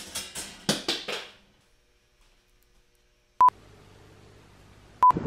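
Two short electronic beeps at one high pitch, about a second and a half apart, around the middle and near the end, marking cuts between clips. Before them come a few brief hissy sounds and then near silence; after the first beep a faint low hum sets in.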